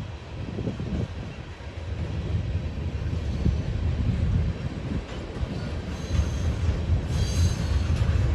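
Freight train of tank cars rolling past with a steady low rumble of wheels on rail. A high-pitched wheel squeal joins about six seconds in and grows stronger near the end.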